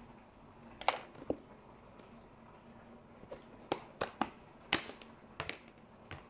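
Plastic food packaging being handled and opened by hand: a series of sharp crackles and clicks, about nine in all, the first loud one about a second in and most of the rest bunched in the second half, over a faint steady hum.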